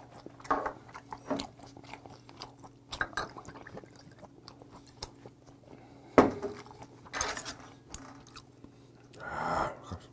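A man chewing raw yellowtail sashimi with wet mouth clicks and smacks. About six seconds in there is one sharp knock on the table, the loudest sound, as a glass soju bottle is handled.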